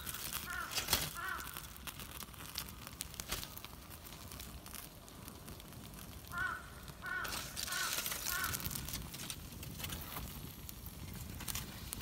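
A crow cawing: a short run of harsh caws at the start and a run of four more about six seconds in, over light crackling and crinkling noises.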